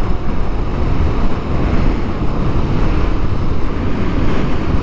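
Steady wind noise over the microphone and road rumble from a motorcycle riding at a steady cruising speed, an even rush with no change.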